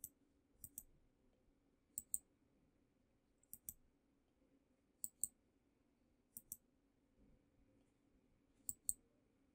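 Computer mouse buttons clicking: seven quick pairs of sharp clicks, about one pair every second and a half, over a faint steady hum.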